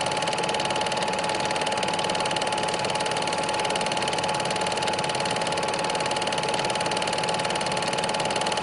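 A small machine running steadily, with a fast, even rattle and a constant tone.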